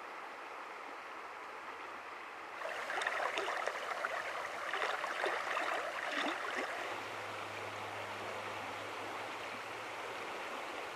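Shallow river water rushing over a stony riffle. About two and a half seconds in it gets louder, with lively splashing and gurgling for a few seconds, then settles back to a steady rush.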